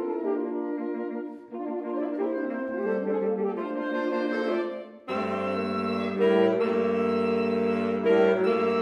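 A saxophone quartet of soprano, alto, tenor and baritone saxophones playing sustained chords, with pitches sliding around three seconds in. After short breaks at about a second and a half and about five seconds in, a low bass line joins and the ensemble plays louder.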